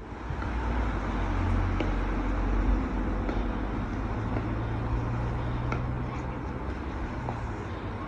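Outdoor ambience with a steady low rumble like road traffic, and a few faint, sharp pops of pickleball paddles hitting plastic wiffle balls.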